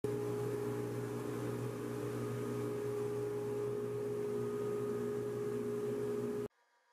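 Steady mechanical hum of a running motor or fan in a woodshop, with a constant whir, cutting off suddenly near the end.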